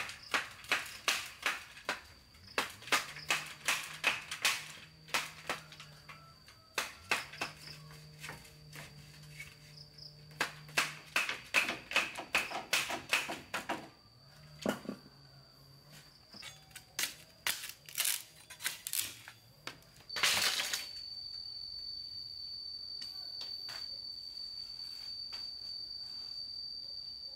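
A rapid series of sharp knocks or taps, about three a second, in two long runs, then scattered taps and one louder hit about twenty seconds in. A steady high-pitched tone runs beneath and grows stronger after that hit.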